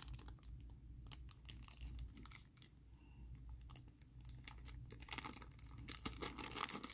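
Small clear plastic zip-lock bag crinkling as it is handled, in faint quick crackles and clicks that come more often near the end.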